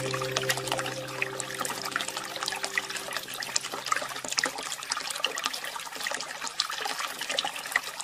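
Running water trickling, with many small splashes, like a small stream. Sustained background music tones fade out over the first half.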